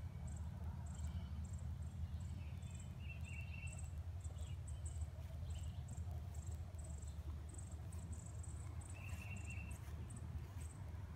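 Insects chirping: short, high chirps repeating several times a second, over a steady low rumble, with a couple of brief higher calls.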